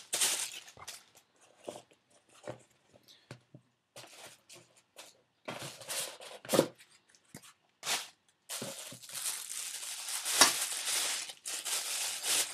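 Plastic packaging bags crinkling and rustling in irregular bursts as camera-lens accessories are unwrapped and handled, with the longest stretch of rustling over the last four seconds.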